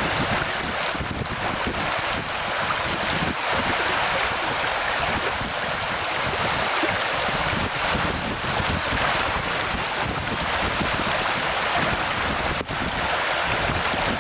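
Steady rushing of a fast-flowing river, with a brief dip in level near the end.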